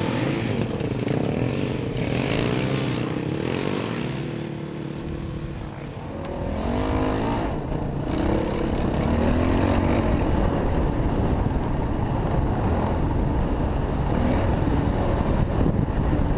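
Dirt bike engines revving, their pitch rising and falling over and over as the bikes ride over sand. From about six seconds in it is louder and closer, the sound of the bike being ridden, with a low rumble underneath.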